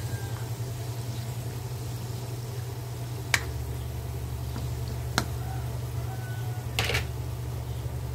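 Spatula knocking against a metal wok while chicken and chicken liver pieces are turned, three sharp taps over a steady low hum.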